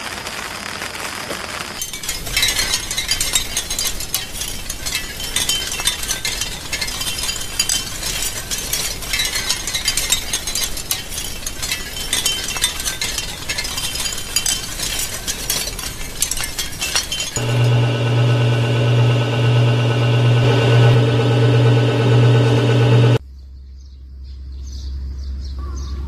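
Rapid, dense small metallic clinking and tapping for about fifteen seconds. Then a loud steady low hum with many overtones, which cuts off suddenly and leaves a quieter, lower hum.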